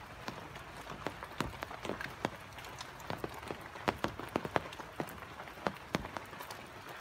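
Rain falling: a steady hiss with sharp, irregular drops striking close by, several a second.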